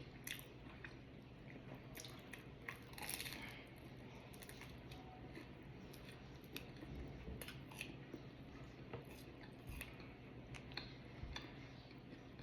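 Close-up chewing and biting of pizza: short, scattered mouth clicks and small crunches, with a longer crackly bite about three seconds in.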